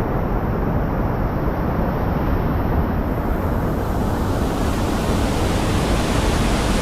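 Steady roar of rushing whitewater at a river waterfall, duller for the first three seconds and brighter after that.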